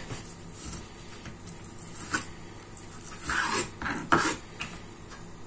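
Kitchen knife slicing the fat and membrane off a raw pork loin. The blade scrapes and taps on a wooden cutting board in a few short strokes, about two, three and four seconds in.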